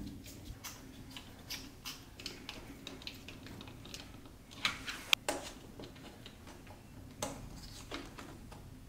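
Small clicks and taps of hand assembly: 3D-printed plastic parts and a hex driver being handled and fitted together on a cutting mat, with one sharp click about five seconds in.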